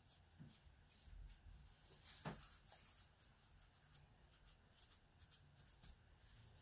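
Near silence with faint scratching of a fine round watercolour brush making short fur strokes on heavy watercolour paper: a scattering of soft ticks, more of them near the end.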